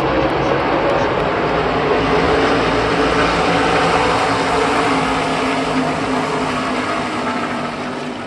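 A pack of stock cars running past on the front stretch, their V8 engines making loud, steady engine noise that fades over the last two seconds as the pack moves away.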